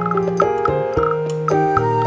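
Background music: gentle instrumental with plucked or keyboard notes and a light ticking beat.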